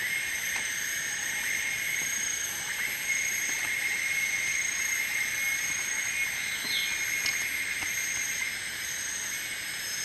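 Tropical rainforest insect chorus: a steady high-pitched drone, with a higher, fainter tone pulsing about once a second over it.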